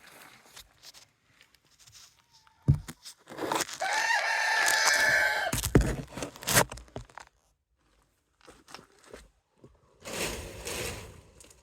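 A rooster crows once, a single call of about two seconds a few seconds in, among scattered knocks and rustling.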